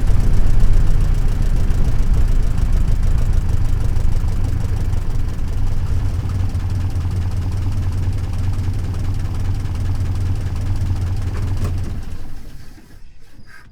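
A 1927 Chevrolet's four-cylinder 2.8-litre engine running at a steady idle, then dying away about twelve seconds in, with a few faint clicks as it stops.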